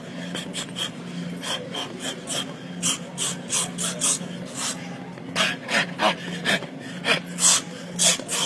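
Sharp hissed breaths, one with each punch of a shadow-boxing combination, about two or three a second and coming in quicker bunches in the second half, over a steady low hum.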